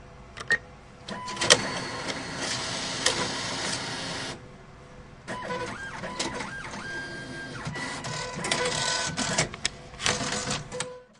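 Cash machine's internal mechanism whirring and clicking in two long runs, like a printer feeding, after a couple of sharp clicks near the start. The sound stops abruptly at the end.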